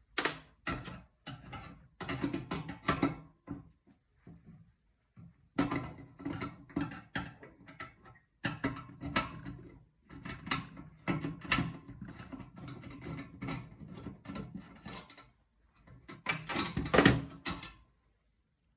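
Screwdriver and metal computer parts being handled while a PC is taken apart: irregular clicking, rattling and knocking in short clusters with brief gaps, the loudest clatter near the end.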